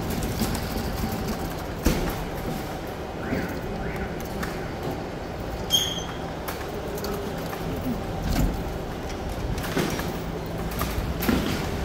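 Claw machine running: the claw drops into the plush toys and lifts back out over a steady mechanical hum, with several sharp clicks along the way.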